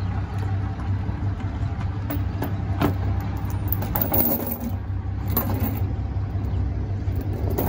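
Pickup truck engine idling as the truck reverses slowly, a steady low rumble, with a few light clicks and knocks.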